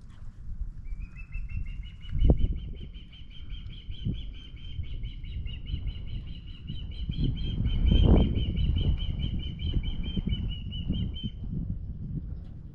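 A bird calling in a long, rapid series of high chirps that goes on for about ten seconds, over wind buffeting the microphone with strong gusts about two and eight seconds in.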